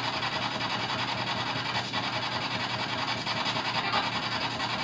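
Steady hiss of static with no distinct events, a few faint brief crackles standing out.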